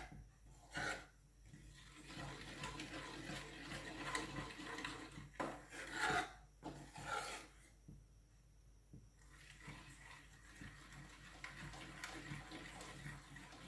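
A utensil scraping and stirring gram flour as it roasts in ghee in a pan, in faint, irregular strokes with a short pause past the middle.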